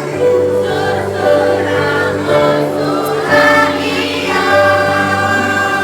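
A primary-school children's choir singing held notes over a musical accompaniment with a steady bass line.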